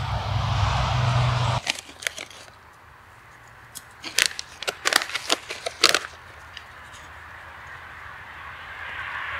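Freeze-dried meal pouch being torn open and handled: a burst of sharp crinkling crackles about four to six seconds in. Before it, a steady rushing hiss cuts off abruptly about a second and a half in, and a softer hiss builds again near the end.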